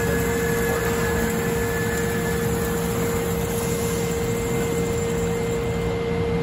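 Industrial horizontal band saw running steadily while cutting metal under flood coolant: a constant machine drone with a steady whine.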